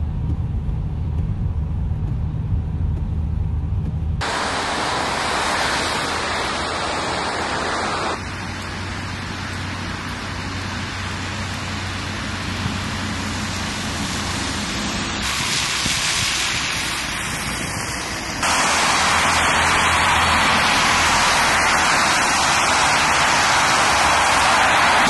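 Road traffic in falling snow: first the low rumble of a car's engine and tyres heard from inside the car, then the hiss of tyres on wet, slushy roads with vehicle engines. The sound changes abruptly several times.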